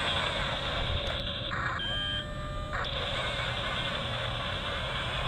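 Double E 579 RC bulldozer running: a steady high electric-motor whine over gear and track noise, which partly drops out for about a second and a half before picking up again.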